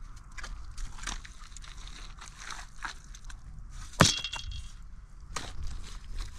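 Scattered scrapes, rustles and small knocks of hands-on manual work, with one sharp knock that rings briefly about four seconds in.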